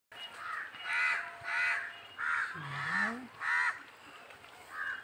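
A bird calling repeatedly, about seven short calls roughly two a second, with a pause shortly before the end.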